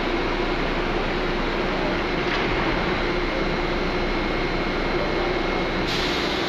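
MARTA rapid-transit train standing at an underground platform, its on-board equipment humming steadily with a few thin steady tones. Its doors slide shut partway through, and a brief hiss comes near the end.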